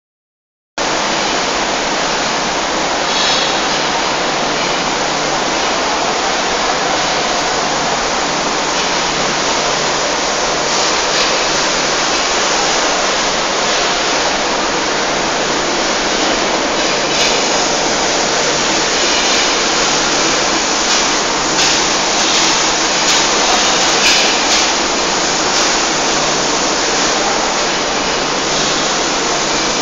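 Paint circulation system running: a loud, steady rushing noise that starts about a second in, with faint brief hisses now and then.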